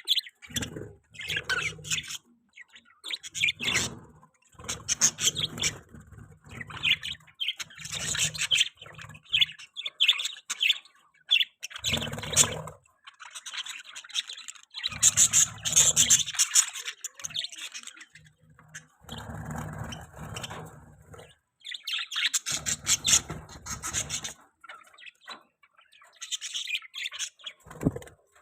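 Budgerigars chirping and chattering together in a cage, in many bursts of rapid high chirps with short pauses between.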